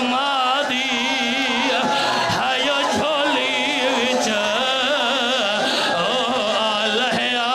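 Shia mourning lament (marsiya-style wail) over a loudspeaker: several voices hold long, wavering notes with heavy vibrato, rising and falling. A few sharp slaps of hands on chests (matam) cut through, about two and three seconds in and again near the end.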